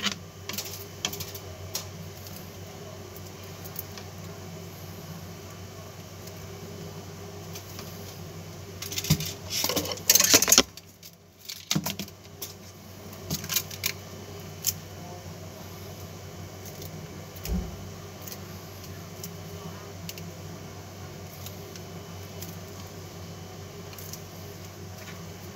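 Enamelled copper magnet wire being wound by hand through a toroidal transformer core: scattered light clicks and metallic rustling of the wire against the winding. A louder cluster of scraping clicks comes about ten seconds in.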